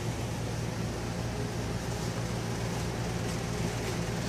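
A steady low hum with an even hiss, with a few faint rustles late on.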